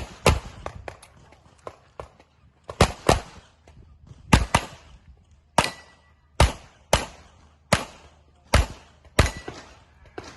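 Pistol shots fired in rapid succession, many in quick pairs a fraction of a second apart, with short pauses between strings; each shot has a brief echo tail.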